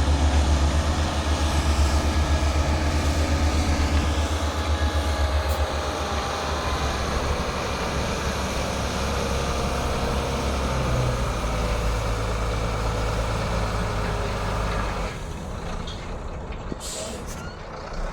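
Water bowser truck's engine running loud and throbbing, then settling to a steadier run with a broad hiss over it, as the truck sprays water to keep down dust; the sound drops away near the end.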